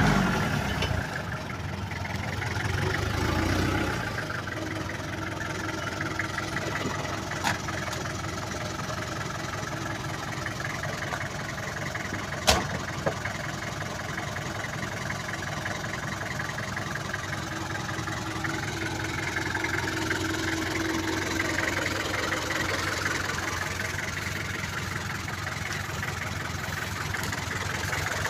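Pickup truck engine idling steadily, with a single sharp knock about halfway through.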